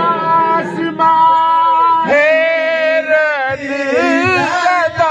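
A man sings a devotional Urdu kalam in long held notes that bend and waver with vibrato. The note changes pitch about two seconds in.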